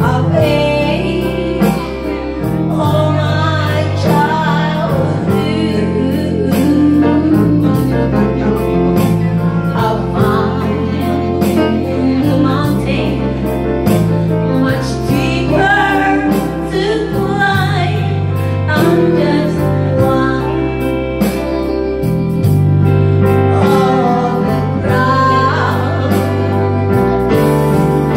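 A woman singing into a handheld microphone over backing music, her voice sliding between notes above a steady, changing bass line.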